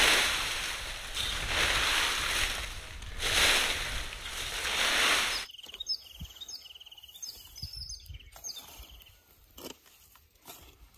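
A rake sweeping through dry leaves in two long rustling strokes. About halfway through the sound cuts abruptly to a quiet outdoor bed with birds chirping and a few faint clicks.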